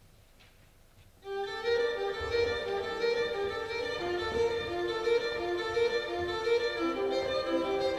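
Near silence for about a second, then violin music starts, held notes repeating in a slow pulse.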